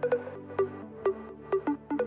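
Background electronic music: a plucked-sounding melody with a note about every half second, sometimes two in quick succession, over a steady low bass bed.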